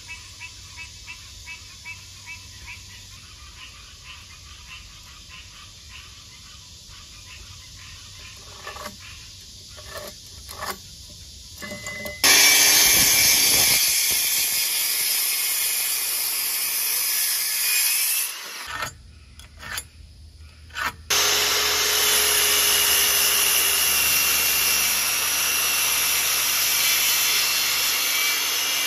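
Corded circular saw cutting through 2x6 lumber: after a quieter stretch of faint ticks and a few knocks, the saw starts about twelve seconds in and runs loud and steady through the wood, stops for a couple of seconds with a few knocks, then cuts again.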